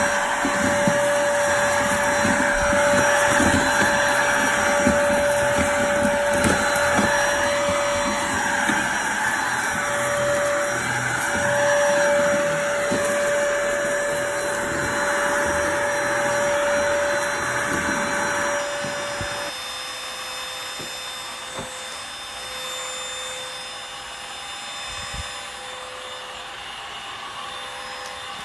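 Dibea D18 cordless stick vacuum cleaner running, a steady motor and airflow noise with a constant whine. About two-thirds of the way through, the whine drops out and it goes on running more quietly.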